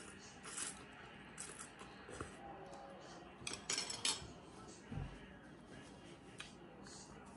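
Eating sounds from a bowl of pho: rice noodles slurped and chewed, with short sharp clicks and clinks of metal chopsticks and spoon against the ceramic bowl, the loudest cluster about halfway through.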